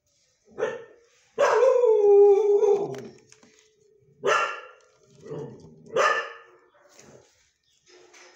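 Dog barking and howling: a short bark, then a long drawn-out cry falling in pitch for about a second and a half, then a few more barks.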